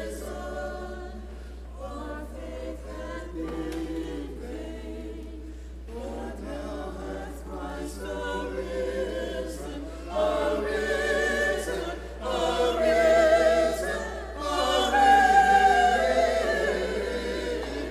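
Church choir singing during Mass, growing louder and fuller in the second half.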